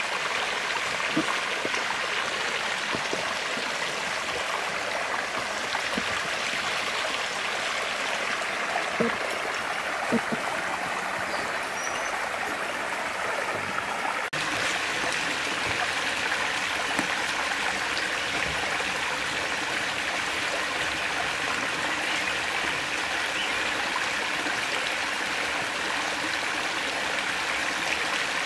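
Shallow stream running steadily over rocks, with a couple of short knocks about a third of the way in.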